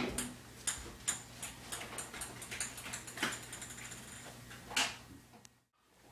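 Ping-pong ball clicking against paddles and the table during a rally, sharp irregular clicks a fraction of a second to about a second apart, stopping shortly before the end.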